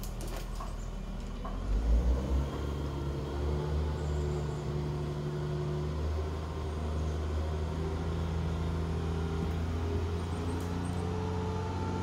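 Crane engine revving up about two seconds in, then running steadily under load while it holds a cut section of tree aloft.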